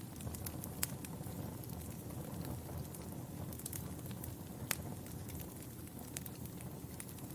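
Wood fire crackling in a fireplace: a steady low rumble of flames with scattered sharp pops and snaps, two of them louder, about a second in and a little past the middle.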